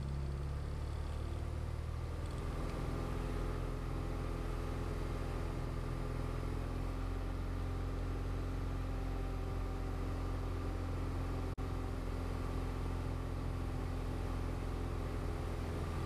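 Diamond DA40 light aircraft's piston engine and propeller running steadily, the engine note shifting about two and a half seconds in. A brief dropout in the sound comes about two-thirds of the way through.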